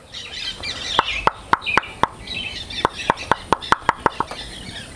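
Knuckles rapping on a hanging wooden stingless-bee box hive in two quick runs of knocks, about five and then about eight. The knocking makes this stingless bee species come out of the hive.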